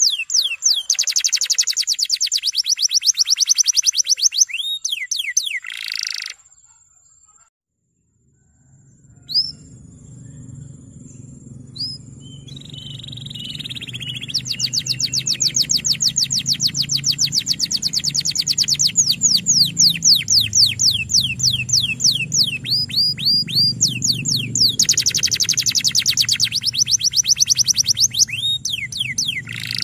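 Male canary singing long rolling trills of rapid, repeated sweeping notes, with a brief pause about six seconds in. After the pause a low steady hum runs underneath the song.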